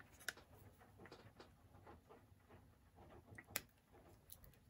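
Near silence with a few faint plastic clicks and taps from a plastic HO-scale model locomotive being handled: one sharp click shortly after the start and another past the middle.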